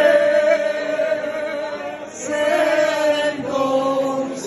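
A group of men chanting together in long, held notes, with a brief break about two seconds in before they go on.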